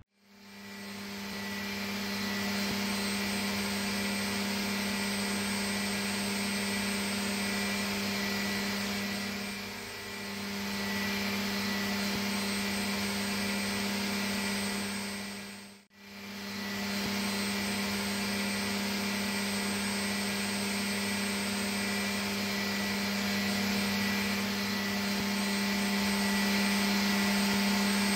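Steady machine hum of a powered-up CNC vertical machining center, a low drone with a whir over it. The sound dips briefly about ten seconds in and cuts out at an edit about sixteen seconds in before coming back.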